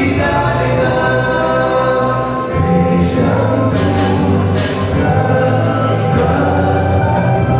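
Male vocal quartet singing a gospel song in harmony through microphones, with several voices holding notes together.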